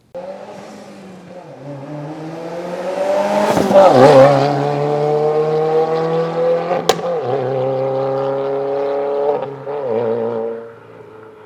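2022 Subaru WRX's turbocharged 2.4-litre flat-four, run with secondary-cat, resonator and muffler deletes, accelerating hard. The exhaust note climbs in pitch, dips at a gear change about four seconds in, climbs again with a sharp crack about seven seconds in, then falls away near the end.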